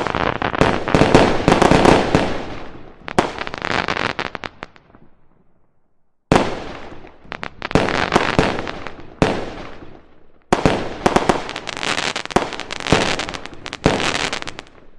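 Fireworks going off in dense volleys of sharp bangs and crackling. The first volley dies away about five seconds in. A second starts abruptly about six seconds in, and a third follows about ten and a half seconds in, fading near the end.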